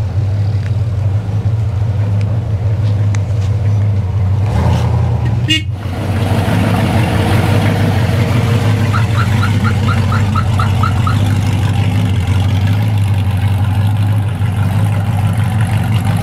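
Steady low engine hum that briefly drops out about five seconds in, with a quick run of about eight short high beeps, about four a second, just past the middle.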